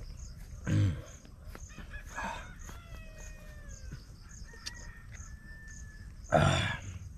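Two short, loud throaty sounds from a man drinking water from a plastic bottle: the first about a second in, dropping in pitch, and a louder one near the end, like gasps or burps after gulping. Between them, thin whistling bird calls and a faint, regular insect chirping.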